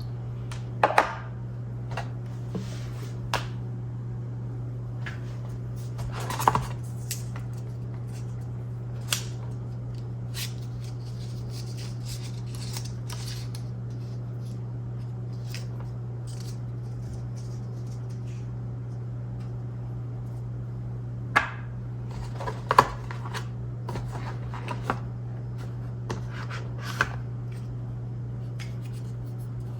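Packaging being handled while a new action camera is unboxed: scattered sharp clicks and short rustles of cardboard and plastic, in clusters about a second in, around six seconds in, and again from about 21 to 27 seconds in. A steady low hum runs underneath.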